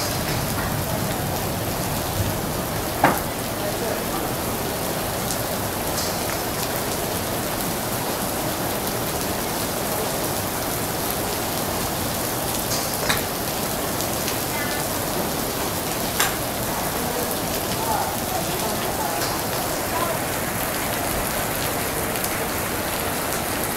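Irons and drivers striking golf balls at a driving range: several sharp clicks at irregular intervals, the loudest about 3 seconds in, over a steady hiss of the hall's background noise.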